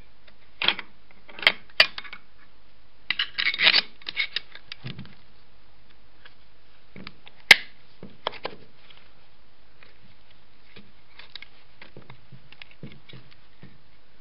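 Metal clicks and clinks of an electric starter motor's casing and end plate being handled and fitted together, in scattered groups of small taps. One sharp click about seven and a half seconds in is the loudest.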